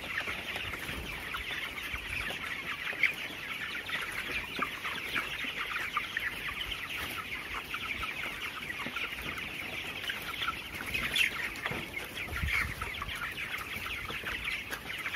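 A large flock of 24-day-old broiler chickens peeping and chirping constantly, with a few short, sharp sneeze-like 'krek' snicks among them. These are the rattling sneezes of ngorok, a respiratory infection in the flock.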